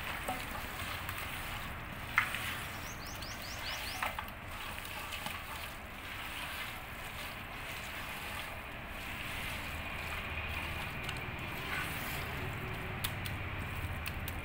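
A hand mixing and squeezing raw chicken pieces coated in a thick spice-and-herb marinade in a metal pan: steady wet squishing and rustling, with a few sharper clicks where the pieces knock against the pan.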